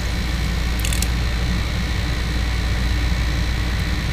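Air conditioner running with a steady, even hum, with a brief high clicking or rattle about a second in.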